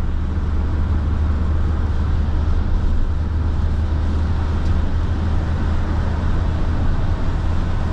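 Steady in-cabin road noise of a Peugeot van cruising at motorway speed on a wet road: a low, even engine and road drone with tyre hiss from the wet surface.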